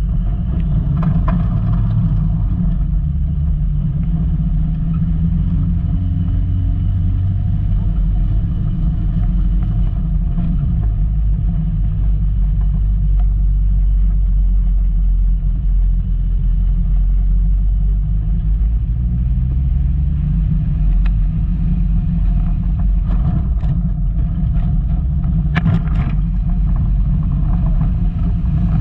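Volkswagen Golf Mk2 driving off-road: a steady engine drone and low rumble whose pitch drifts slowly up and down, with a few sharp knocks in the last third.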